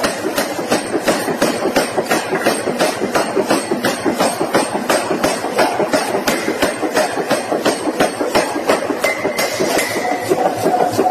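Mechanical forging hammer striking in an even rhythm, about three blows a second, over the steady running of workshop machinery.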